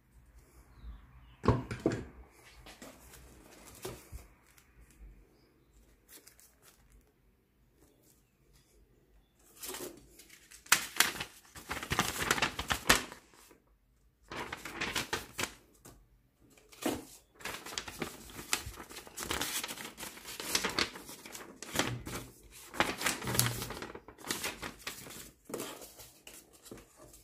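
Sheets of paper rustling and crinkling in bursts as they are unfolded, handled and put back into a cardboard box. Before that, a few sharp clicks in the first couple of seconds.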